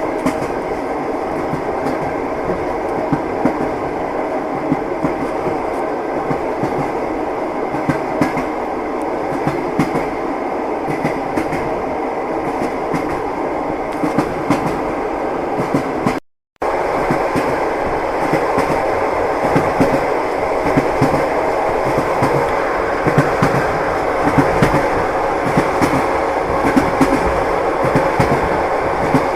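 Train wheels clacking over rail joints under a continuous rolling rumble. The sound cuts out completely for a split second a little past halfway, then carries on slightly louder.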